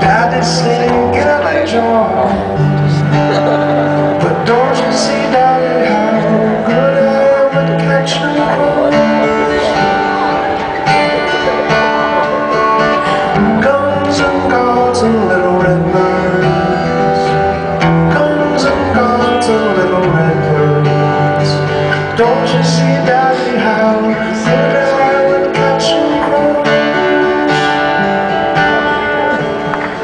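Two acoustic guitars played together live, a continuous run of plucked notes and chords.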